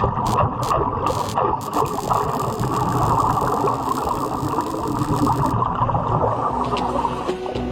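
Underwater welding arc crackling rapidly and continuously, dull and muffled by the water.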